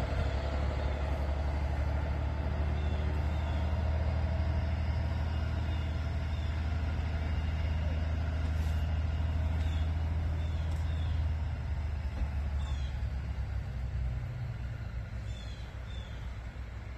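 Diesel semi truck's engine running slowly under load as it hauls a manufactured-home section, a steady low rumble that eases off about eleven seconds in. A few faint, short high chirps come through now and then.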